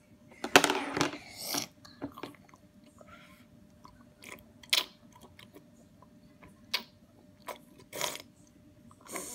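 A small child eating and drinking milk and cereal straight from a plastic bowl held to her mouth, making scattered short slurps, smacks and clicks. There is a loud clatter about half a second in.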